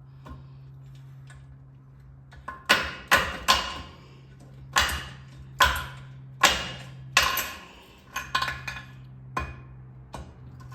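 Hammer striking metal: about a dozen sharp, ringing blows at uneven intervals, starting a few seconds in. A faint steady low hum runs underneath.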